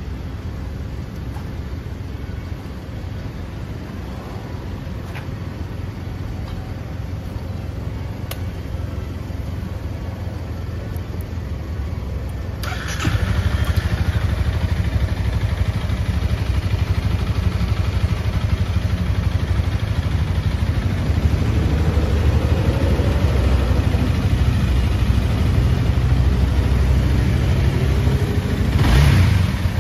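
Honda Rebel 250's single-cylinder engine idling steadily. About 13 seconds in it becomes clearly louder and fuller after a short sharp burst, and there is a brief sharp blip near the end.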